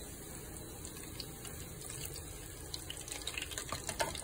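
Crab cakes frying in hot oil in a pan: steady sizzling, with sharper crackles and pops coming thicker near the end.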